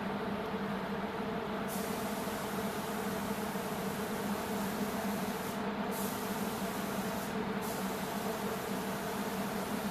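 Steady drone of paint-booth ventilation with a low hum. A high air hiss comes in about two seconds in and breaks off briefly twice.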